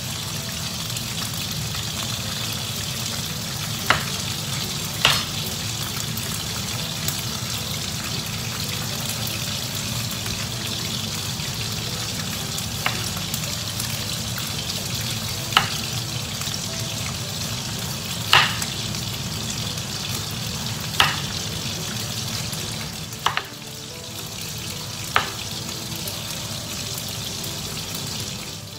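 Chef's knife slicing a long purple eggplant on a bamboo cutting board. A sharp knock sounds each time the blade goes through and meets the board, about nine times at uneven intervals of two to three seconds, over a steady hiss.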